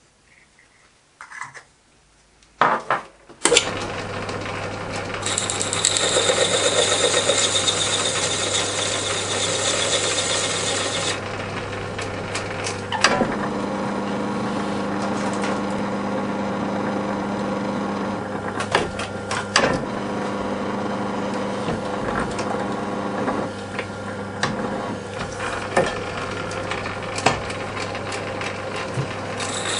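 A few clicks as the chuck is handled, then a metal lathe starts and runs with a steady hum while turning a copper boiler end. A high hiss of cutting comes in for several seconds, and the tone shifts partway through the run.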